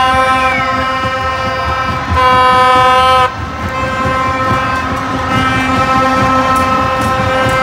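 Football fans blowing plastic vuvuzela-type horns: long held horn tones on one low pitch, several at once, swelling louder from about two to three seconds in, over crowd noise in the stands.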